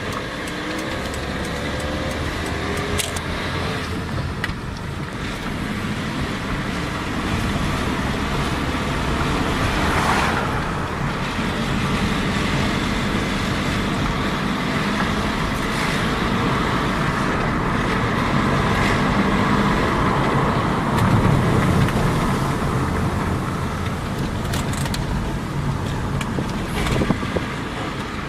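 Volkswagen Jetta 1.8T's turbocharged four-cylinder engine running at low revs, with a low rattling, rumbling noise, heard between about 1,000 and 2,500 rpm, whose cause the owner does not know.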